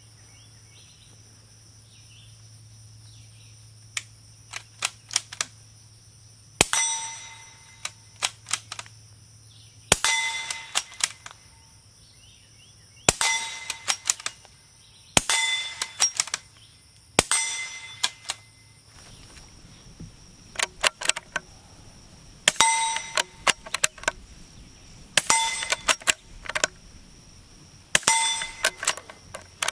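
Suppressed CZ 452 .22 LR bolt-action rifle shooting steel targets: about eight shots a few seconds apart, each a muffled report followed by the much louder clang of the bullet striking steel, which rings on for a moment. Fainter clicks fall between the shots.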